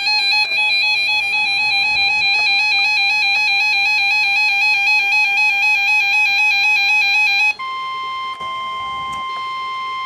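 Weather radio alert: a loud, rapidly alternating two-pitch electronic beeping from a RadioShack 12-262 weather radio. About seven and a half seconds in it cuts abruptly to a steady single-pitch tone, NOAA Weather Radio's 1050 Hz warning alarm tone, which signals that a warning is about to be broadcast.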